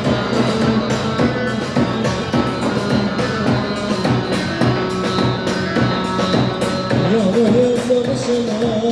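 Live band dance music with a steady beat and plucked strings, in the style played for halay line dancing; a new melody line enters about seven seconds in, ahead of the singer.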